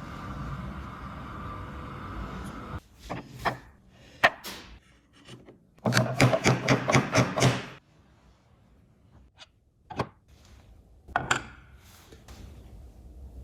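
Wooden parts being handled and worked: a few sharp wooden knocks and clicks, with a quick run of rubbing strokes about six seconds in.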